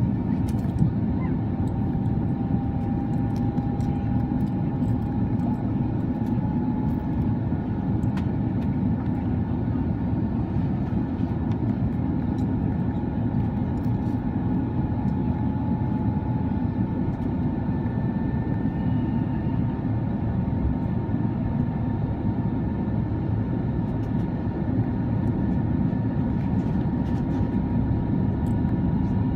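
Steady cabin noise inside an Airbus A330-300 airliner with its Rolls-Royce Trent 772B engines running: an even low rumble and rush of air, with a faint thin whine that drifts slightly in pitch.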